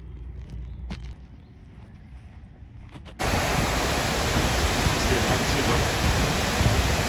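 A faint low rumble with a few light clicks, then about three seconds in a sudden switch to the loud, steady rush of a waterfall pouring down a stone channel.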